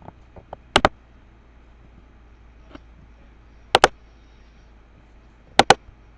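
Computer mouse double-clicking: three sharp pairs of clicks a few seconds apart, over a faint steady hum.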